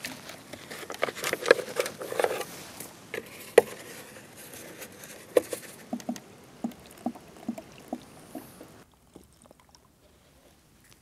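Hands handling a plastic jerrycan and a trap pot among dry crop stubble: rustling of straw with a few sharp knocks, then a run of light clicks a few times a second from about six seconds in. It dies down near the end.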